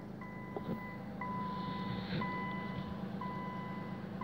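An electronic warning beeper sounding in a steady repeating pattern, one long beep about every second with a short gap between, over a low steady hum.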